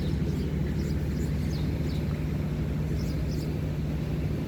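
Steady low engine drone, with a few faint, short high chirps falling in pitch.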